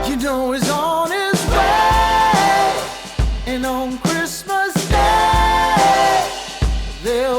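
Background pop song with a singer's voice over a steady beat.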